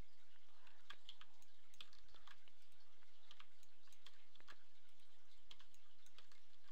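Irregular clicks of a computer mouse and keyboard keys, a few each second, as shortcut keys are pressed and objects are clicked.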